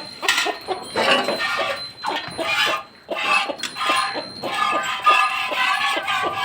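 A cow being milked: milk squirting in short jets, settling into a quick steady rhythm of several squirts a second from about halfway through.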